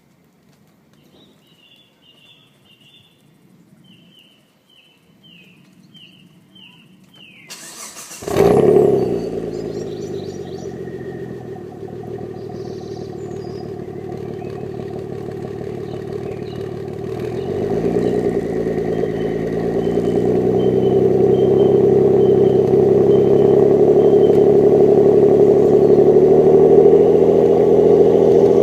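Birds chirp over near quiet, then about eight seconds in an engine starts with a sudden loud burst and settles into running. Around two-thirds of the way through its speed rises and it keeps running steadily; the owner suspects a misfire.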